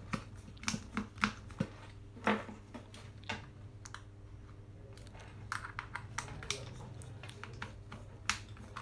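Irregular light clicks and taps of a small screwdriver and plastic phone parts being handled as a mobile phone is screwed back together, over a steady low hum.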